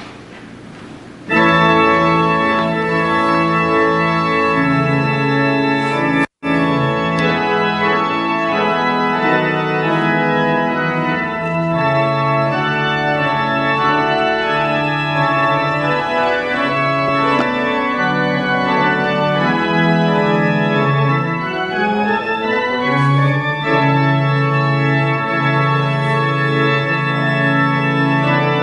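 Organ music with sustained chords, starting suddenly about a second in and cutting out for an instant around six seconds in; played as the closing music right after the benediction.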